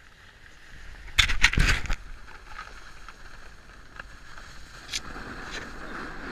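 Snowboards sliding over packed, groomed snow: a loud, gritty edge scrape about a second in, then a steady rushing slide with a couple of sharp knocks near the end.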